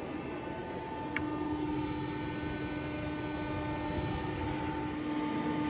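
John Deere 7R310 tractor and 1770NT planter machinery running in place: a steady mechanical hum with several held tones. A steady whine comes in about a second in, together with a single light click.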